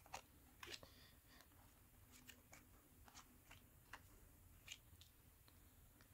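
Faint, irregular clicks and taps of trading cards being handled and laid down one by one on a cloth-covered table, over quiet room tone.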